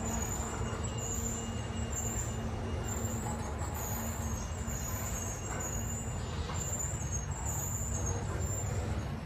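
Freight train of tank cars and covered hopper cars rolling slowly past on its brakes, a steady rumble of steel wheels on the rails.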